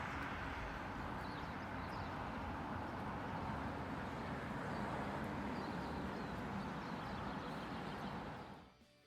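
Steady outdoor background noise, an even wash with no clear single source, fading out about eight and a half seconds in.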